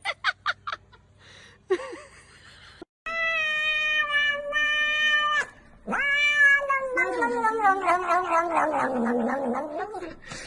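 Domestic cat yowling in long drawn-out meows. The first is held at one pitch for about two seconds. The second, longer one slides down in pitch and climbs back up at the end.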